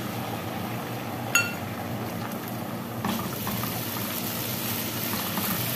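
Garlic and oil sizzling steadily in a frying pan with ketchup just added, then stirred with a wooden spatula from about three seconds in. A single sharp clink about a second and a half in.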